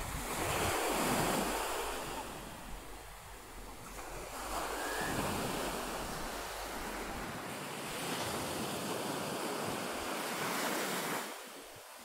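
Sea waves washing onto a sandy beach, the surf swelling and easing about every four seconds, played back after a wind-removal filter has been applied to the recording.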